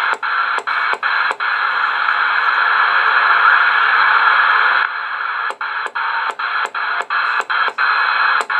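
Cobra 140 GTL CB radio giving out steady receiver static as its channel selector is turned. Each channel step briefly cuts the static with a click: four quick steps in the first second and a half, then a run of about eight steps from about five seconds in.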